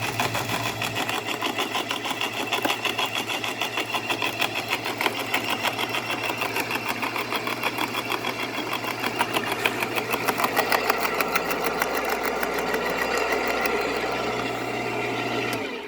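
Electric home wood chipper running with its cutter chewing through a branch: a steady motor hum under a fast, dense clattering chatter. The motor cuts off suddenly near the end.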